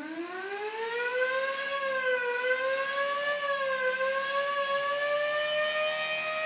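Sireno UA electric siren running on 24 volts, winding up: its tone climbs steeply at first, then settles into a steady wail that wavers slightly and keeps creeping higher in pitch. Heard from about 85 feet away.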